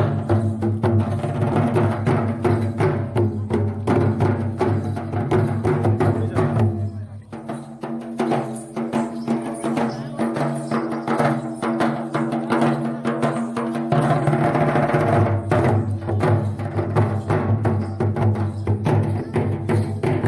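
Music carried by fast, steady drumming over sustained pitched tones. The deep bass drops away about seven seconds in, leaving lighter percussion, and comes back about fourteen seconds in.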